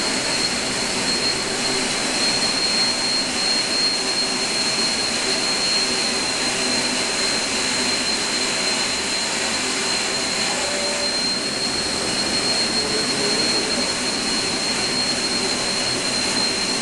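Large electric motor and its belt-driven machine running steadily, giving an even whirring noise with a constant high-pitched whine over it.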